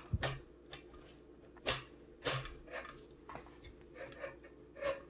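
Handling clicks and knocks of a camera matte box being slid onto and fitted to a rig's rails, a handful of sharp, irregularly spaced strokes with lighter rattles between them.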